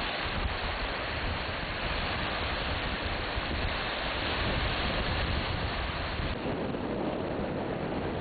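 Wind buffeting the microphone: a steady, even rushing noise that is heaviest in the low end.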